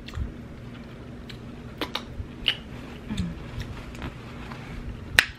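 Close-miked chewing of barbecue ribs, with scattered short wet mouth clicks and smacks and one sharper click near the end, over a faint steady hum.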